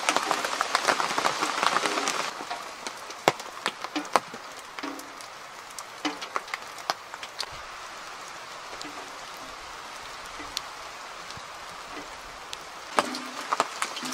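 Steady rain falling through woodland, with close drops and drips tapping sharply at irregular intervals. It is heavier for the first two seconds and then settles to an even patter.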